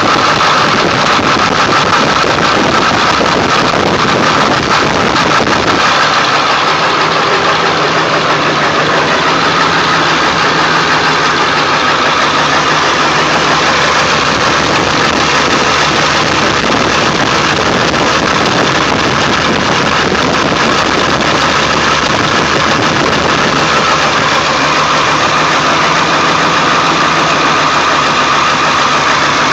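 1999 Ford F-350's 7.3-litre Power Stroke V8 turbo diesel idling roughly after a cold start, the rough idle that shakes the truck though it keeps running; the deepest part of the rumble eases about six seconds in.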